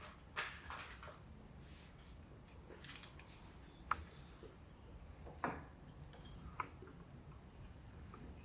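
A few light clicks and taps from tools and hardware being handled, with no drill running.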